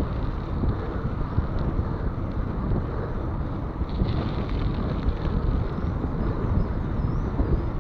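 Steady wind rush buffeting a bike-mounted camera's microphone while a mountain bike rolls along at speed.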